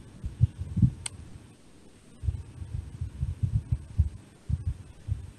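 Irregular low thumps and rumble picked up by a computer microphone on a video call, with a faint click about a second in.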